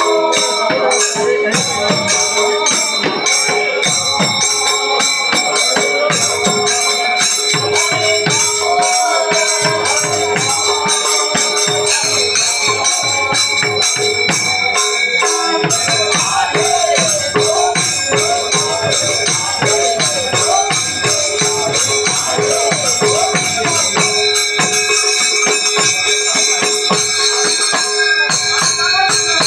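Devotional kirtan: hand cymbals clashing in a quick steady rhythm with barrel drums (pung) played underneath, and men singing in chorus, clearest in the second half.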